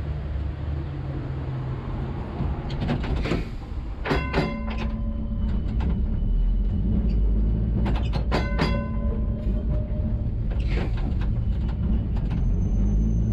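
Tram's warning gong rung in two short bursts of strikes about four seconds apart, each leaving a ringing tone. Under it, the electric tram's running hum starts up as the tram moves off from a standstill.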